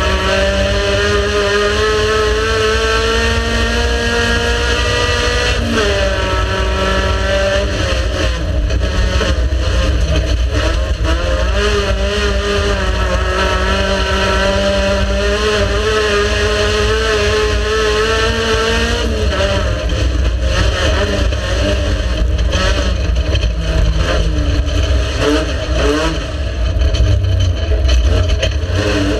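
Race car engine running hard. The pitch climbs, then drops sharply about six seconds in at a gear change, holds high revs with small rises and falls, drops again near twenty seconds, and revs up quickly at the very end.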